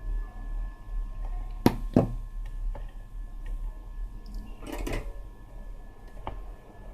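Small clicks and taps of tools and small radio parts being handled on a workbench: two sharp clicks about a second and a half in, a short rattle of clicks about five seconds in, and one more click near the end, over a low steady hum.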